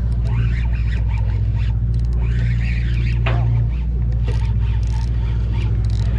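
Steady low hum of a party boat's engine running, with faint background voices and small handling noises over it.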